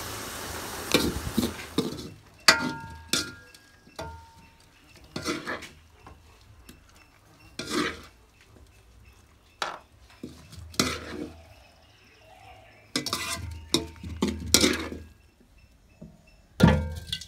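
Wooden spatula stirring and scraping chopped amaranth greens around a large metal wok, with scattered knocks and clinks on the pan, some leaving the metal ringing briefly.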